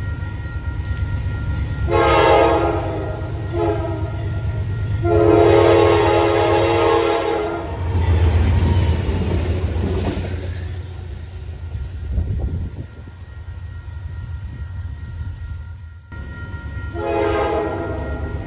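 Nathan P5 five-chime air horn on a GE C40-8 diesel locomotive sounding for a grade crossing: a long blast, a short one, then a long one, over the steady ringing of the crossing signal bells. About eight seconds in, the locomotive's diesel engine passes close and loud. Near the end, after a cut, another train's horn sounds a single blast.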